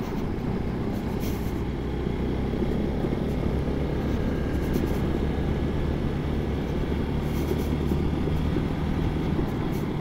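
Hero XPulse 200 4V motorcycle's single-cylinder engine running at a steady cruise while riding, with road and wind noise.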